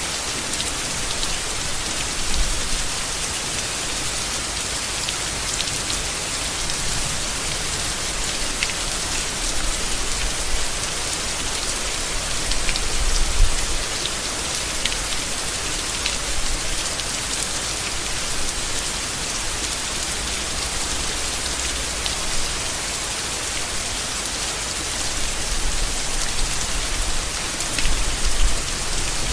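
Steady rain falling on leaves: a dense, even patter with individual drops ticking through it, and a few short low bumps now and then.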